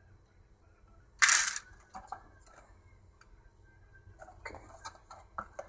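Small plastic action-figure parts being handled and fitted: a short, loud rustling scrape about a second in, then a run of small plastic clicks near the end as a swap hand or accessory is worked onto the figure.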